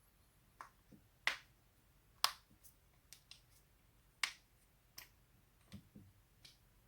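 Spinal joints cracking: a string of about a dozen sharp pops and cracks, spaced irregularly, with three loud ones standing out in the first half and a little past the middle.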